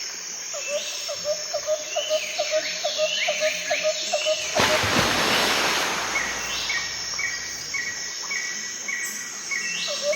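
Outdoor nature ambience with several birds calling: a rapid series of low chirps in the first half, then evenly repeated higher notes, over a faint insect background. A short burst of rushing noise, like a gust of wind, comes a little before halfway.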